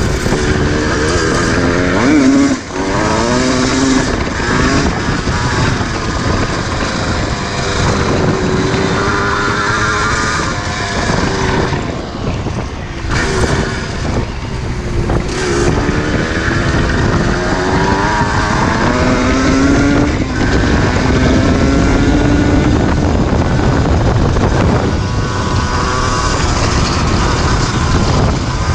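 Yamaha DT 125 two-stroke single-cylinder engine under way, its pitch rising again and again as it accelerates and dropping back with each gear change or roll-off.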